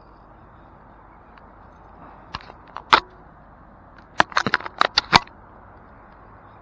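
Sharp clicks and knocks of gear being handled against the camera, two a little after two seconds, then a quick cluster of about eight between four and five seconds, over a steady low hiss.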